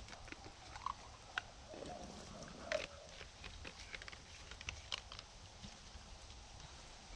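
Scattered small clicks and crunches, irregular and light, over a steady low rumble.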